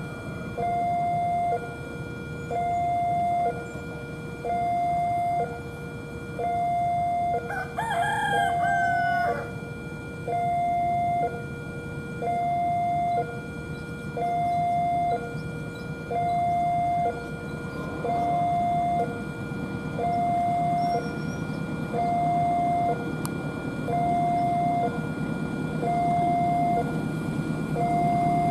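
Railway level-crossing alarm sounding a steady two-tone ding-dong, a high tone then a lower one of about a second each, repeating over and over. A rooster crows once about eight seconds in, and a low rumble grows toward the end.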